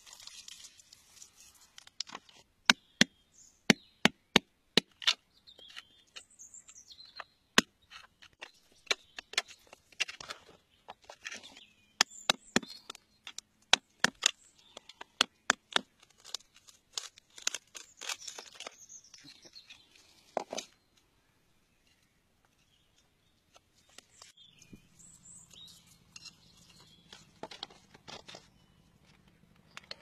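Sharp clicks and taps of a thin metal probe against rock and crystal, dozens of them in uneven runs that stop a few seconds before the end. Near the end a low steady hum comes in.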